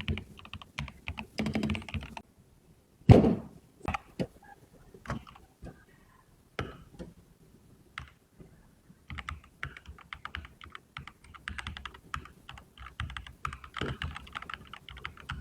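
Typing on the Alienware PRO Series mechanical gaming keyboard: quick runs of key clicks, with one loud thump about three seconds in, sparser clicks through the middle, then a long fast run of keystrokes near the end.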